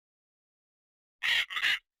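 A bird giving two short, harsh calls in quick succession, starting a little past halfway.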